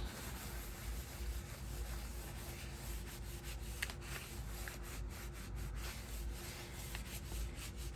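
Paper being rubbed and pressed down by hand onto a collage journal page: a soft, steady scratchy rubbing with a few light ticks partway through.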